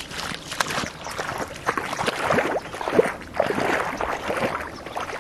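Shallow water splashing and sloshing irregularly as a person wades through it, with short gurgling sounds.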